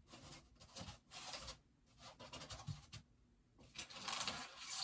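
Scraping and rustling from hands handling a bobblehead figure while fitting it onto its base, in several bursts, loudest near the end.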